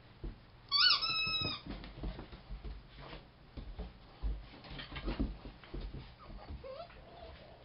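A puppy at play with a rubber squeak toy: one high squeak about a second in, held for roughly half a second, then light knocks and scuffling on wooden porch boards as the puppy moves around the toy. A faint short whine-like note comes near the end.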